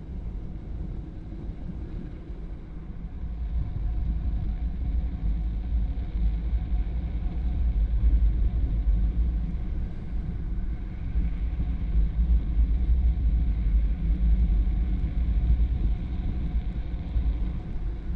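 Heavy wind rumble on the microphone with tyre noise on wet asphalt, from a drift trike coasting downhill at about 50 km/h. The low rumble grows louder a few seconds in as the speed builds.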